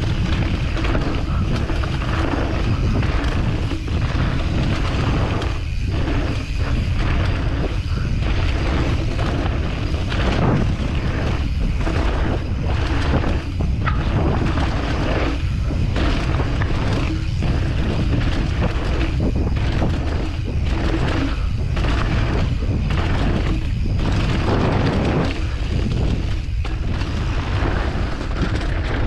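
Wind rumbling on a GoPro microphone during a mountain bike descent, with mountain bike tyres running on a dirt trail and irregular bumps and rattles from the bike.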